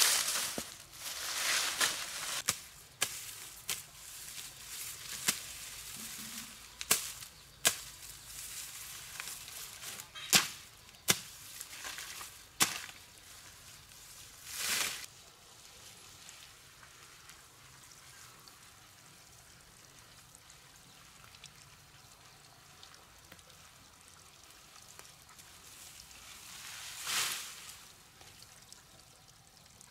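A series of irregular, sharp chopping knocks through the first half, then a quieter stretch broken by a brief rush of noise near the end.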